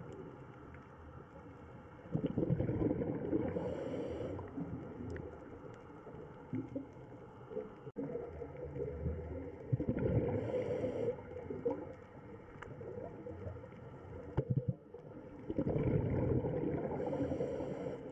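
Underwater sound of a scuba diver breathing: rising exhaled bubbles in surges about every six seconds, each paired with a short regulator hiss.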